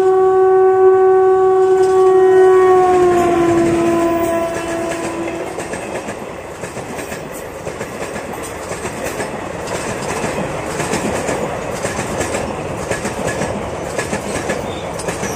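Electric locomotive's horn blowing one long note, its pitch dropping slightly as the engine passes, ending about five seconds in. Then the passenger coaches rumble past with a rapid clickety-clack of wheels over the rail joints.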